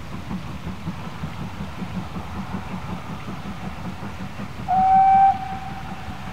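GWR Manor-class 4-6-0 steam locomotive 7820 Dinmore Manor working with a steady rhythmic exhaust beat. About three-quarters of the way in it gives a short whistle blast, loud at first and then trailing off.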